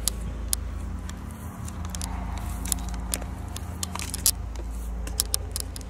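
Footsteps crunching on dry ground: scattered sharp crackles and clicks over a steady low rumble.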